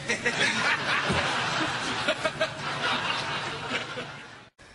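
Laughter over a fluffed line. It dies down and cuts off suddenly near the end.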